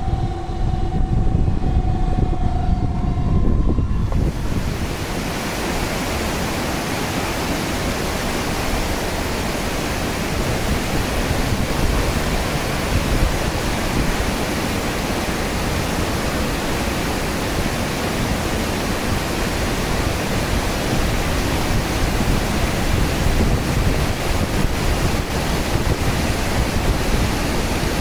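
A dam discharge-warning siren's steady tone dies away about four seconds in. It gives way to a loud, steady rush of water released through the weir gates.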